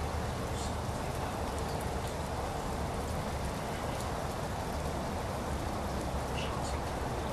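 Light rain falling: a steady, even hiss with a few faint drip ticks, over a low steady rumble.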